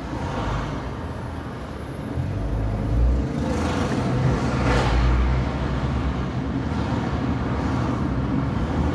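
Road and engine noise heard from inside a moving car in city traffic: a steady low rumble, with two louder surges of passing traffic about three and five seconds in.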